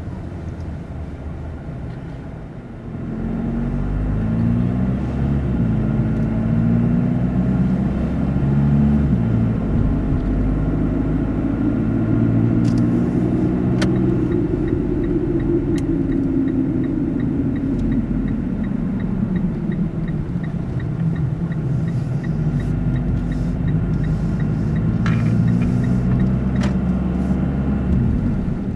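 Car engine and road noise from a car driving on a town street, mostly low in pitch. It gets louder about three seconds in as the car picks up speed, with the engine note climbing and dropping back a few times, then swelling and easing off again.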